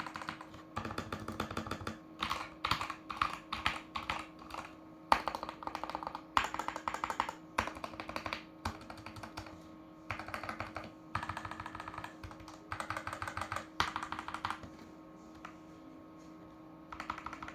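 Tecware Phantom+ mechanical keyboard with Wraith Red linear switches being typed on: bursts of rapid keystrokes separated by short pauses, with a quieter stretch of fewer keystrokes near the end. A faint steady hum lies underneath.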